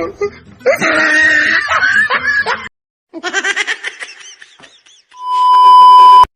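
Laughter for about two seconds, then a sudden cut and a shorter burst of pulsing, laugh-like sound. Near the end comes a loud, steady single-pitch beep about a second long that stops abruptly.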